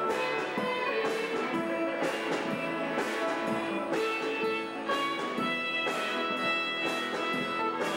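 Athabascan fiddle dance music: a fiddle playing a two-step tune with a band, over a steady drum-kit beat of about two strokes a second.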